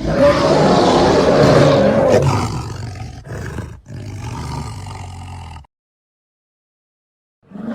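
Custom werespider monster roar sound effect: a loud roar of about two seconds that tails off into a lower, quieter growl and cuts off suddenly about five and a half seconds in. After a pause of almost two seconds, another roar starts right at the end.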